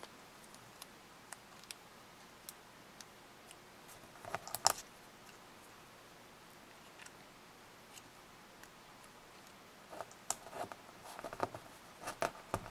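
Small plastic toy pieces being handled and snapped together: scattered light clicks, a louder cluster of clicks about a third of the way in, and a quick run of clicks and rattles near the end.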